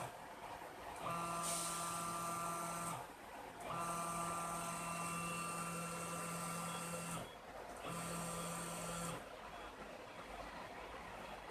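Stepper-motor whine of a High-Z CNC router's axis drives, a steady pitched hum with a high ring above it. The machine makes three separate moves, each starting and stopping abruptly at the same pitch and lasting between about one and three and a half seconds.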